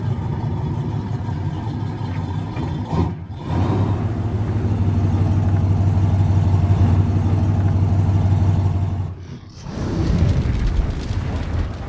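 Car engine running loud and steady, with a short break about three seconds in and a dip late on.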